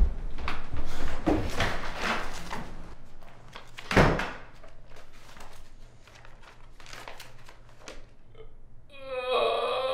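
A door thunks at the start and a louder thump comes about four seconds in, with paper rustling as loose pages are handled and turned. A hummed tune begins near the end.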